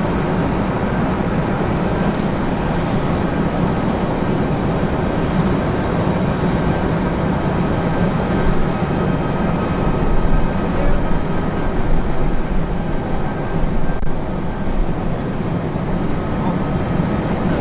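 Airbus A320-232 landing, its IAE V2500 turbofans making a steady, loud rumble with a few faint steady tones above it.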